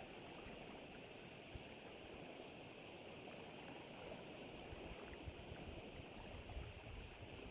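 Faint wind buffeting the microphone over small waves lapping at the lake's edge, with a steady high hiss behind.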